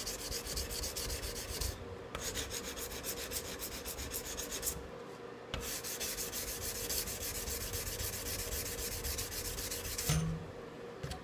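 Sandpaper rubbing along a steel tanto knife blade in quick back-and-forth strokes, pausing twice, with a knock near the end.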